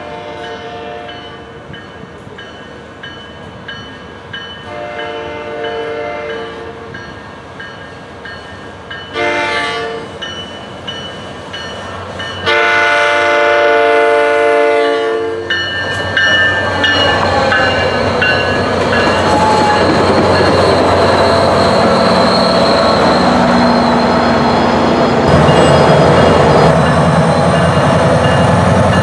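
SunRail commuter train sounding its horn in the long, long, short, long grade-crossing pattern, the last blast the loudest. The train then passes close by, and its wheels on the rail make a loud, steady rumble.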